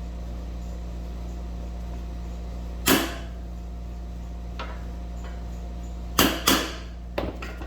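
Hammer blows on a large socket, driving a new wheel bearing into a DRZ 400 SM front wheel hub: one loud strike, then two more in quick succession a few seconds later, followed by several lighter taps.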